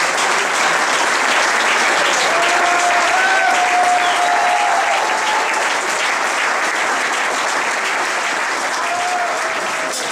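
Audience applauding steadily, with a few voices calling out over the clapping. The applause eases off slightly near the end.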